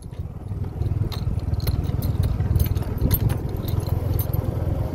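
Vehicle travelling over a bumpy dirt field track: a steady low rumble with scattered rattles and clicks.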